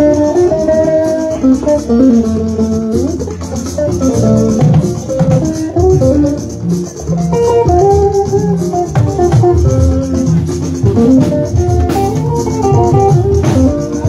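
Upbeat music: guitar and bass guitar with a shaker rattle over a steady drum beat.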